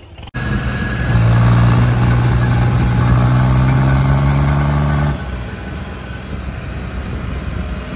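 Diesel engines of two John Deere tractors, one a 5310S, running hard under heavy load at a steady high pitch while the tractors strain against each other in a tug-of-war pull. The drone drops abruptly in level about five seconds in and carries on more quietly.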